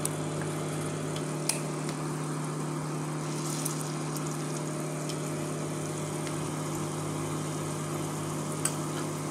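Chana dal batter fritters sizzling as they fry in hot oil in a steel pan, over the steady hum of an induction cooktop. There are two brief clicks, about a second and a half in and near the end.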